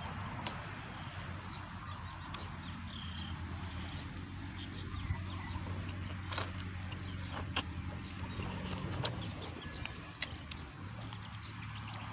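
A steady low motor hum that dies away about nine seconds in and comes back shortly after, with scattered sharp clicks and crunches of eating. A run of faint, quickly repeated high chirps in the middle.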